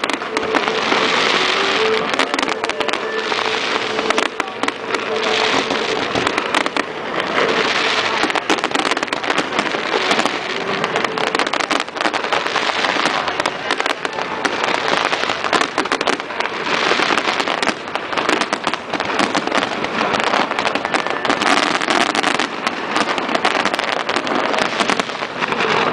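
Fireworks going off in a dense, continuous barrage of crackles and bangs, with no break.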